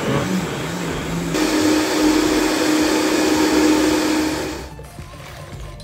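Vitamix blender running, puréeing a jerky marinade of herbs, red bell pepper and orange juice. A little over a second in it jumps to a higher, louder speed, then it switches off and winds down near the end.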